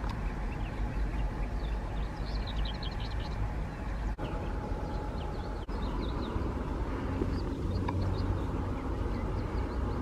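Small birds chirping in quick short high notes over a steady low rumble, with a faint steady hum that fades about six seconds in.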